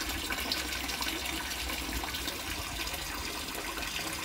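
A thin stream of water pouring into a fish tank, splashing steadily into the water surface.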